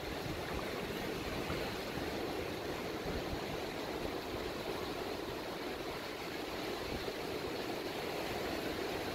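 Ocean surf breaking and washing up a sandy beach, a steady rush of water.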